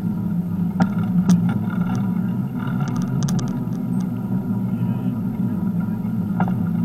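Steady low rumble of a bicycle rolling along a path, heard from a camera mounted on the bike, with sharp clicks and rattles about a second in and a short cluster of them around three seconds.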